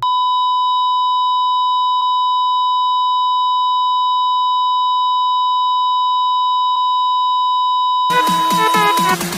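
Patient heart-monitor flatline tone: one continuous high beep held for about nine seconds, the sound of a heart that has stopped. Electronic dance music comes in near the end, and the tone cuts off just after.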